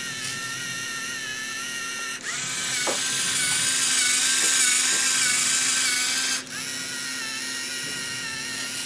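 Lego Mindstorms NXT servo motors whirring steadily. From about two seconds in to about six and a half seconds the whine grows louder and brighter, then it drops back to the steady whir.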